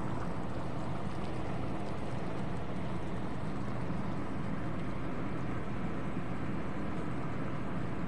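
Chicken adobo with potatoes bubbling in a pot on a gas stove, heard as a steady rushing noise with a low hum under it.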